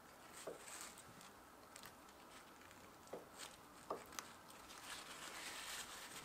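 Faint, soft taps and squishes of a chef's knife cutting through acorn jelly onto a wooden cutting board, a handful of separate cuts. Near the end a paper towel rustles as it wipes the blade.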